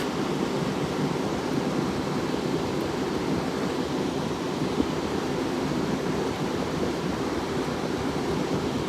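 1960s Westinghouse 10,300 BTU window air conditioner (model MHK111M1) running, its fan blowing a steady rush of air.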